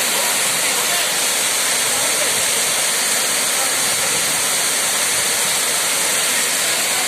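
Waterfall: a loud, steady rush of falling water that stays even throughout.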